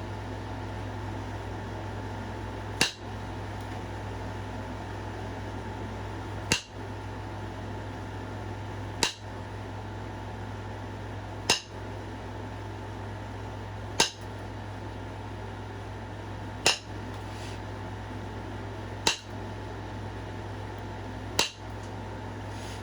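Flintknapping: eight sharp clicks of the knapping tool on the stone, about one every two and a half seconds, as flakes are taken off the edges of a point being thinned. A steady low hum runs underneath.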